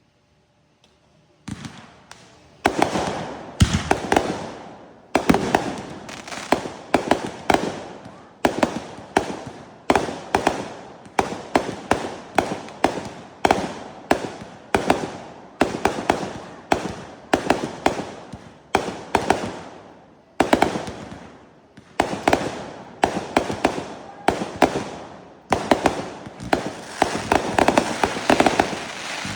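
Fireworks going off in a rapid string of sharp bangs, about one to two a second, each dying away before the next. They start after about a second and a half of near silence.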